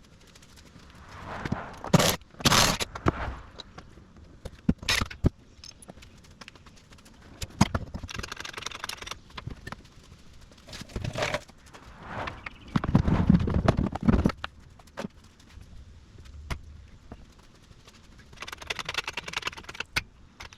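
Workshop handling noises: irregular metal knocks, clanks and scrapes of tools and engine parts being moved about, with a heavier low rumble of something being dragged or shifted about thirteen seconds in.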